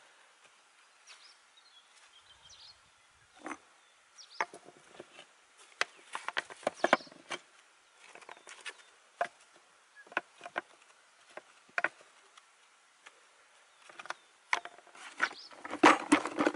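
Flat stones being fitted by hand: scattered knocks, clinks and scrapes of stone on stone, busiest in the middle and loudest near the end.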